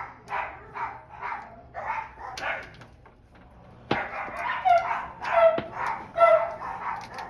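A dog barking repeatedly, about two barks a second, with a pause of about a second midway. Two sharp knocks land among the barks in the second half.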